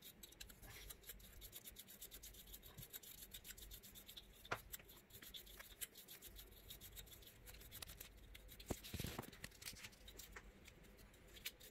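Faint, rapid scratching of a small toothbrush's bristles scrubbing dust from the plastic blades of a graphics card's cooler fan, with a light knock about four seconds in.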